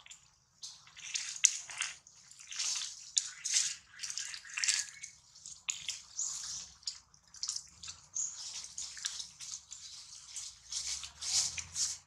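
Dry fallen leaves rustling and crackling in quick irregular bursts as the monkeys move and forage in them.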